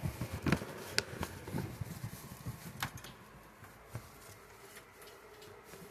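A few scattered light knocks and clicks with some low rustling as objects are moved out of the way. It thins out after about three seconds.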